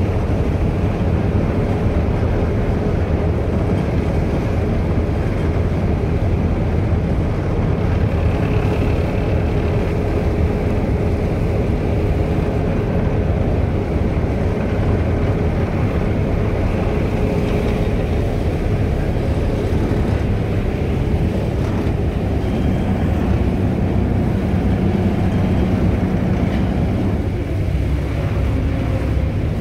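A harbour ferry's engines running with a steady low drone while under way, heard from on deck, with a rush of water along the hull.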